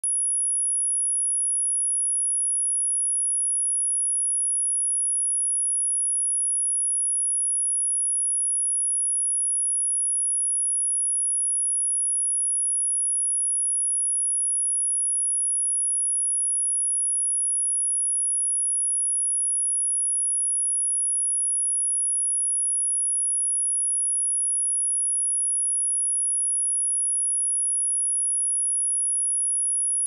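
A pure 10,316 Hz sine-wave test tone: one steady, high-pitched whine that holds the same pitch and level throughout. It is played as a speaker-test and speaker-cleaning tone.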